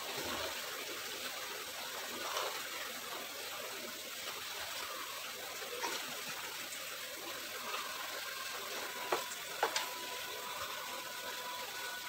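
Biryani masala with quail sizzling steadily in a non-stick wok, with two sharp clicks of the spatula against the pan about three quarters of the way through.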